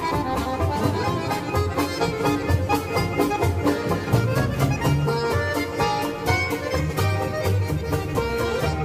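Polka music led by a piano accordion, with a quick, steady beat.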